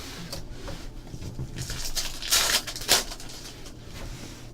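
Trading cards and foil pack wrappers being handled: soft rustling and sliding, with two louder rustles about two and a half and three seconds in.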